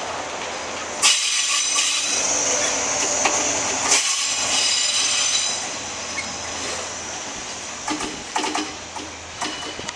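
Train at a station: a sudden loud burst of high hissing and squealing tones starts about a second in, lasts about four seconds, then fades. A few sharp clicks follow near the end.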